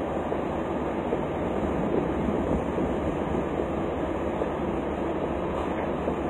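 Steady, even low rumble of a truck's engine idling, with no distinct knocks or changes.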